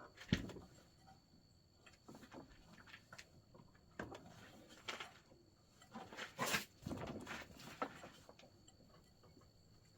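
Handling noises of a drive belt being worked onto a riding mower's pulleys by hand: scattered knocks, clicks and scrapes of belt and metal parts. A sharp knock comes just after the start, and the busiest stretch is about two thirds of the way through.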